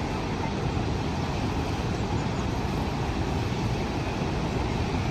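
Steady, even rush of the Rhine Falls' water crashing over the rocks, a constant wash of noise heavy in the low end.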